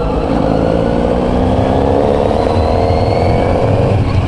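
Kawasaki Z900RS inline-four engine running through a K-Factory titanium full exhaust while the bike is ridden, its pitch rising slowly as it gently gathers speed.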